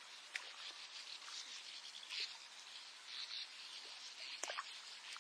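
Faint morning lakeside nature ambience: scattered distant bird chirps over a high, steady insect-like hiss, with a few soft clicks.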